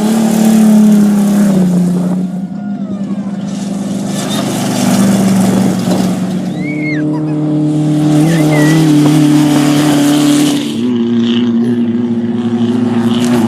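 Off-road race vehicle engines running at high revs, their pitch holding steady for several seconds at a time and shifting a few times, with repeated bursts of hiss.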